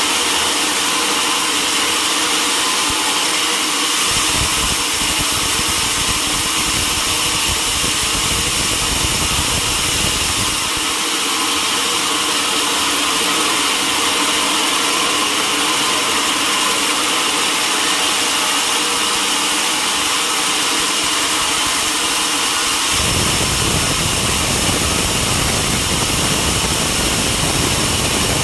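Sawmill running steadily with a constant high-pitched whine. A deeper rumble joins from about four to ten seconds in and again from about twenty-three seconds on.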